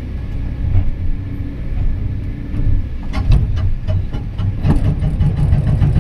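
Excavator's diesel engine running steadily, with a cluster of knocks and clanks about three seconds in and again near five seconds in.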